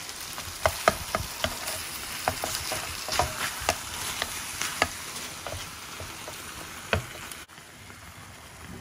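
A utensil stirring chicken pieces in oil and butter in an enamel tin dish, with many sharp clicks and scrapes against the dish over a steady sizzle of frying. About seven and a half seconds in the sound cuts to a quieter, steady sizzle of the chicken cooking.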